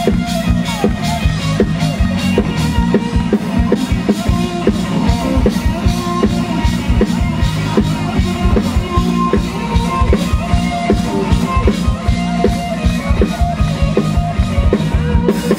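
Live rock band playing an instrumental passage through a stage PA: electric guitars, bass and a drum kit keeping a steady beat, with no singing.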